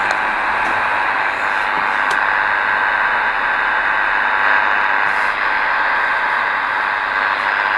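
Shortwave receiver tuned to 8992 kHz putting out steady static hiss, with faint steady whistling tones running through it and no voice message.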